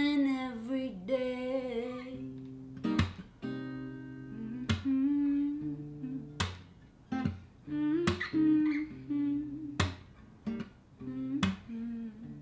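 Acoustic guitar being played, with a sung note trailing off over the first two seconds. Then the guitar carries on alone: a strong strummed chord about every second and a half to two seconds, with the chord notes ringing and picked notes between.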